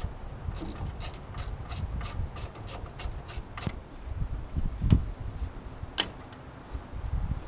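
Hand ratchet wrench clicking steadily, about four clicks a second, as a bolt on the Ford 8N tractor's engine is worked; the clicking stops a little over halfway through, followed by a few single clicks and knocks.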